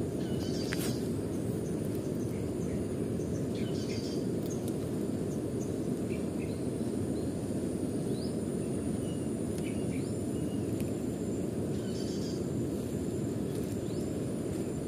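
Steady low rushing outdoor background noise, with a thin steady high insect whine and a few short bird chirps scattered through.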